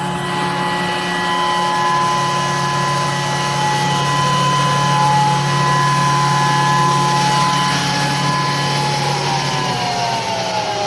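Wood dowel rod milling machine running with a steady motor hum and whine over a rushing noise. Near the end, its pitch starts to fall.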